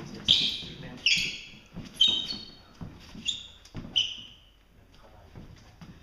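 Hands and forearms striking and slapping against a training partner's arms and jacket during a Wing Chun drill: about five sharp contacts roughly a second apart, each with a brief high rustle, then quieter.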